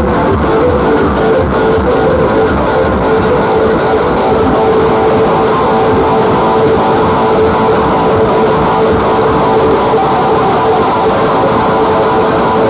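Loud music played through a large outdoor sound system with 30-inch bass speakers, steady and continuous.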